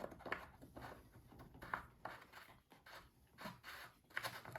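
Faint handling noises: a few light clicks and knocks, spaced out, with a soft scrape or two.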